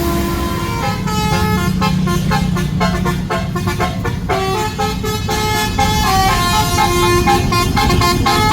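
Tour bus's basuri musical air horn playing a quick tune of short stepped notes, with a low rumble underneath.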